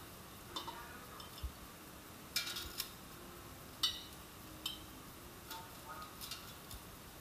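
Metal kitchen tongs clicking and clinking against an air fryer basket and a ceramic plate while cooked prawns are lifted out: a scattered series of short, ringing clinks, the loudest about two and a half and four seconds in.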